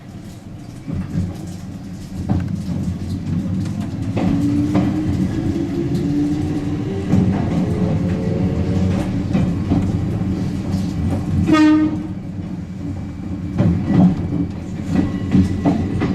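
Toyama Chiho Railway Alps Express electric train heard from inside the car: a steady rumble with rail-joint clicks. A motor whine rises in pitch from about four to nine seconds in as the train speeds up. A brief high tone sounds about twelve seconds in.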